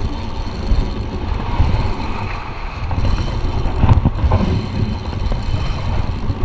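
Heavy wind rumble buffeting the microphone over surf washing in around the angler's legs, with a single sharp click about four seconds in.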